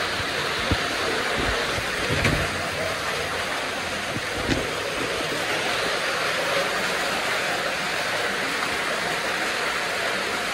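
Steady rush of water flowing through a tunnel, with a few dull thumps in the first few seconds.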